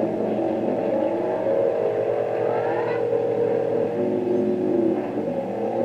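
Several AM ham transmitters tuning up at once, heard through a Collins 75A-4 receiver. Their carriers beat against each other as a cluster of overlapping steady whistles that start and stop at different times. Some of the whistles slide up and down in pitch as operators tune their rigs.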